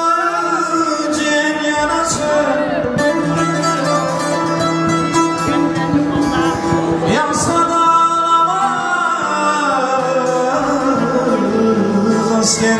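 Music with singing: a voice carries a melody over long held instrumental notes.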